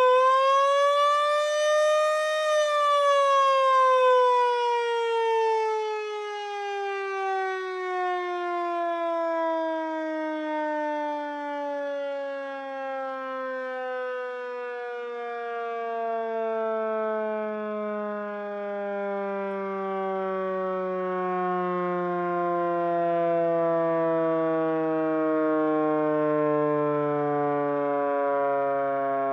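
Miniature Federal Signal STH-10 siren, driven by a single-phase Maytag induction motor, giving a brief rise in pitch over the first couple of seconds. It then winds down in one long, slow, steady fall in pitch. The owner puts the long wind-down down to the weight having been taken out of the rotor.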